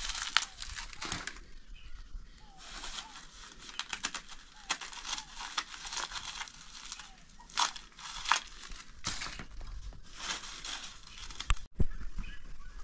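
Dried ears of corn being husked and shelled by hand: irregular dry crackling, rustling and scraping as husks are torn and kernels rubbed off the cob. A sharp knock near the end.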